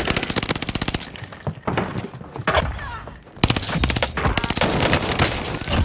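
Rapid automatic gunfire: fast, evenly spaced shots in two long runs, one in the first second or so and another starting about three and a half seconds in.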